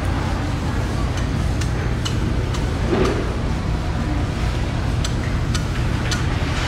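Fish market working noise: a steady low rumble with scattered sharp clicks and knocks, and faint voices.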